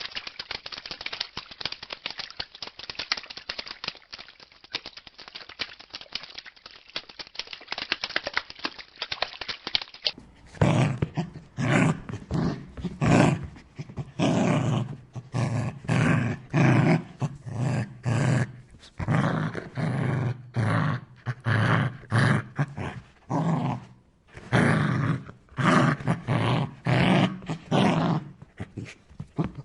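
Dog sounds from two recordings. For about ten seconds there is a rapid, dense chatter of dog noise; after a cut, a dog growls and barks in short, deep, repeated bursts, roughly two a second.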